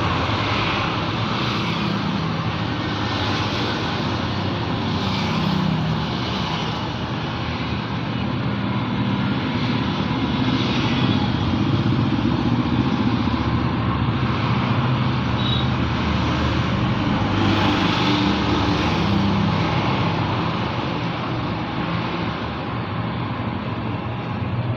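Road traffic: a steady mix of vehicle engines running and tyre noise, with motorcycles among them and vehicles swelling past every few seconds.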